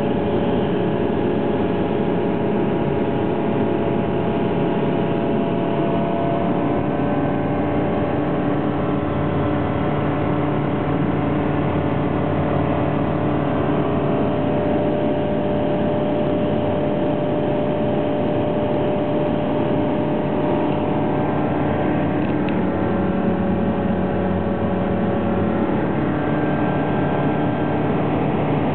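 Evektor EV-97 Eurostar microlight's Rotax four-cylinder engine and propeller running steadily in flight, a continuous drone with wind noise, heard inside the cockpit.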